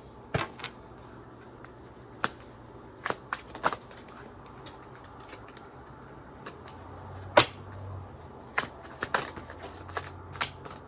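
Tarot cards being shuffled and drawn from the deck: irregular light snaps and taps, the loudest about seven and a half seconds in.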